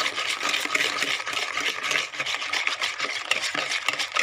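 Hand whisk beating eggs and sugar in a plastic bowl: rapid, repeated strokes of the whisk swishing through the liquid and scraping the bowl.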